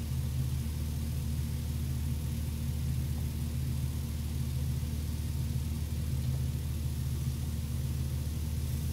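Steady low mechanical hum, with one of its tones wavering slightly in strength.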